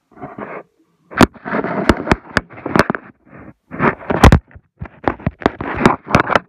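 Handling noise close to the microphone: an irregular run of sharp knocks and clicks mixed with scraping and rustling, broken by brief silent gaps.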